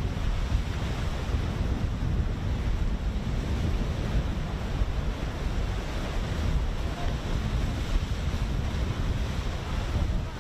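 Steady wind buffeting the microphone, heaviest in the low end, over the wash of the open sea.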